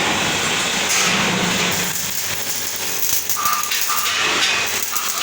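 Electric arc welding: a loud, uneven hiss as wire mesh is welded onto a truck's partitions.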